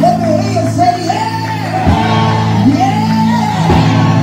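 A man's voice singing in a strained, shouted style over held low keyboard chords, with two sharp hits about two seconds apart.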